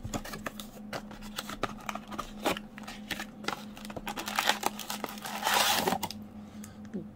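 A cardboard trading-card blaster box being opened by hand, its flap bending back with scattered scrapes and clicks, then the foil-wrapped card packs sliding out with crinkling. There is a louder rustle about five and a half seconds in.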